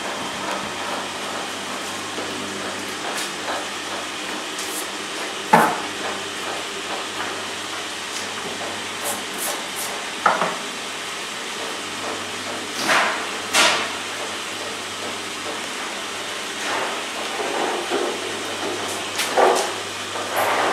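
Honey extractor running with a steady mechanical hum, and a few knocks and clatters of wooden honeycomb frames being handled, the sharpest about five and a half and ten seconds in.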